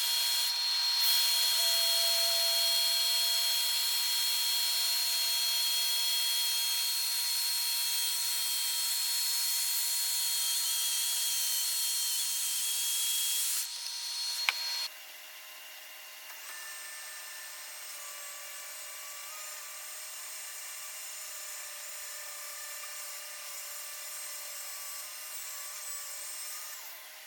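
Electric power tool working oak, running steadily with a whine. It drops abruptly to a quieter steady run about 14 to 15 seconds in.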